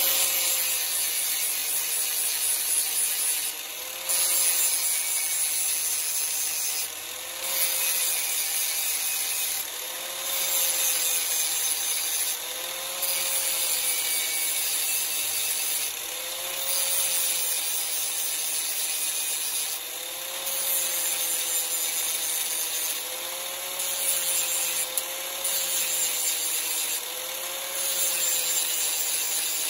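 Angle grinder running continuously, its abrasive disc grinding the steel teeth of a hedge trimmer blade to sharpen them. The motor's whine sags and recovers as the disc bears on the metal, and the grinding hiss swells and eases about every three seconds as it moves from tooth to tooth.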